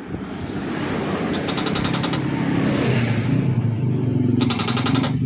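A motor vehicle approaching, its engine growing steadily louder. Two short, rapid rattling pulses sound over it, about a second and a half in and again near the end.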